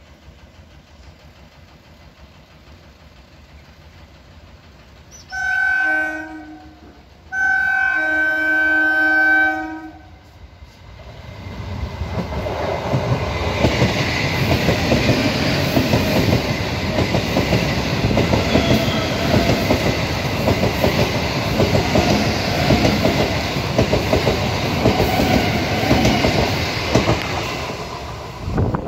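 Old Indian Railways EMU local train sounding two horn blasts, the second longer, then running past close by at speed: a loud, steady rumble and clatter of wheels over the rails lasting about fifteen seconds.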